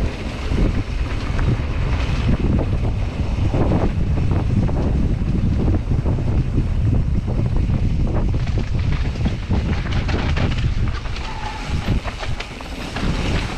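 Wind buffeting an action camera's microphone over the rumble and rattle of a downhill mountain bike running over a rough trail, with short clattering knocks throughout. It eases for a moment near the end, then picks up again.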